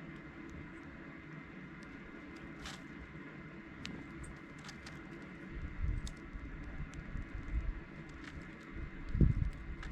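Scattered short, high tick-like notes of dark-eyed juncos, with low rustling thumps that grow about halfway through and are loudest near the end.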